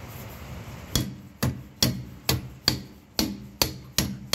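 Hammer end of a combination pry bar tapping the lower rear shock bolt home through its mount: a steady series of sharp strikes, about two to three a second, starting about a second in.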